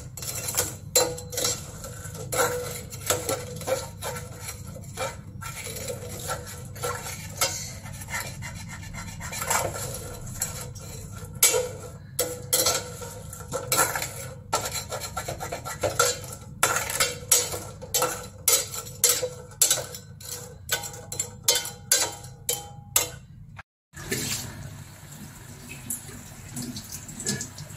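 A steel utensil clinking and scraping against a hammered stainless-steel pan as it stirs and breaks up jaggery lumps melting in liquid, many sharp clicks over a steady low hum. After a brief cutout near the end, the jaggery syrup bubbles at the boil with only a few light clinks.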